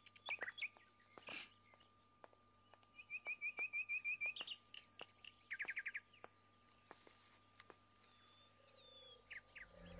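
Birds chirping: a quick run of eight or so repeated chirps about three seconds in, and a short rapid trill near six seconds. Beneath them runs a faint, regular ticking about three times a second.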